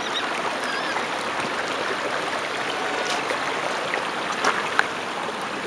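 Waterfall and its creek rushing steadily.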